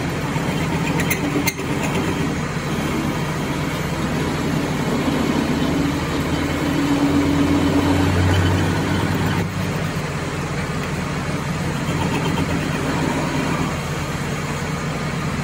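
Metal lathe running as its tool cuts a diesel pump camshaft: a steady machine hum with the hiss of the cut. It grows louder for a couple of seconds about seven seconds in, and there are two sharp clicks about a second in.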